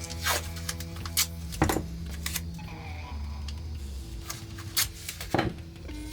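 Adhesive tape being pulled and handled, about six short ripping rasps over steady background music.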